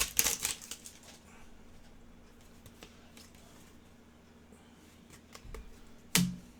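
Trading cards being handled: soft rustling and small clicks at first, then faint occasional ticks of cards being moved, with a brief louder sound about six seconds in.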